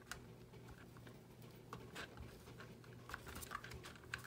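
Light clicks and taps of small plastic kit parts being handled and pressed together on a toy model truck, ending in one sharp loud click near the end as a part snaps into place.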